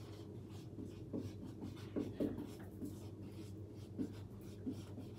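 Marker pen writing on a whiteboard in short, irregular strokes.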